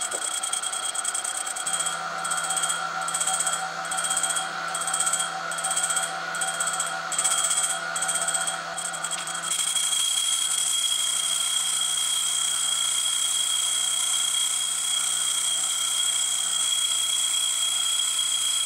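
A 400-grit diamond wheel, driven by a sewing-machine servo motor, grinds the tip of a carbide drill bit turned slowly in a small motor-driven spinner, with a steady high motor whine. The grinding pulses about one and a half times a second for the first half, then runs evenly.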